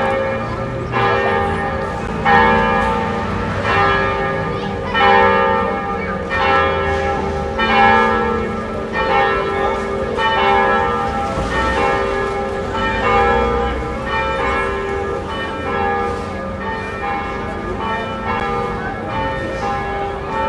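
Church bells ringing, one strike about every second and a half, each note ringing on into the next.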